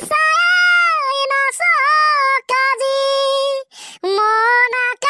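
A high-pitched, child-like voice singing an Assamese song solo, without accompaniment: long held notes broken by short pauses for breath.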